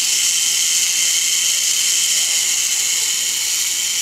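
K'nex model's motor-driven plastic gears and chain running, a steady, high-pitched whirring rattle.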